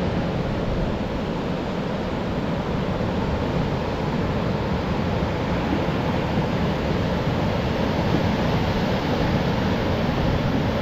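Steady rush of sea surf with wind.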